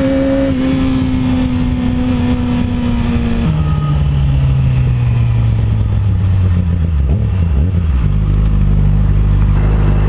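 Yamaha R6 600cc inline-four sportbike engine held at a steady high-revving note; about a third of the way in the pitch drops, then winds steadily down as the bike slows, settling to a steady low note near the end.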